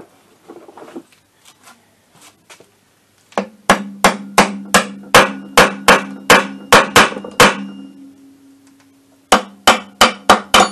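Small hammer tapping the kick-start cover of an MBK Spirit's Minarelli scooter engine to drive it down over a tight centering dowel. About a dozen quick taps, about three a second, each leaving the metal casing ringing, then after a short pause about six more taps near the end.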